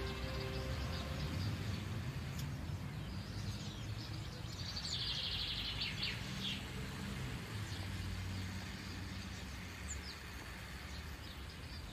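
Outdoor street ambience: a steady low rumble with birds chirping, including a busy burst of chirping about five seconds in.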